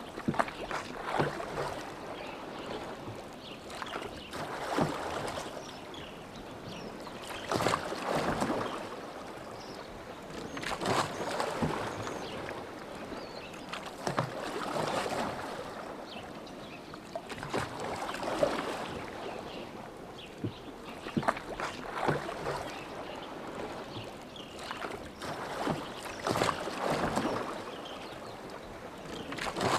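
Oars of a rowing boat splashing through lake water in a steady stroke rhythm, a swell of splashing and dripping about every three and a half seconds, with small knocks between.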